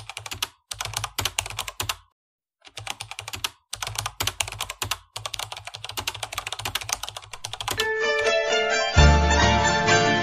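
Keyboard typing sound effect: rapid runs of key clicks in several bursts with short pauses. About eight seconds in, music starts, with a heavy bass from about nine seconds.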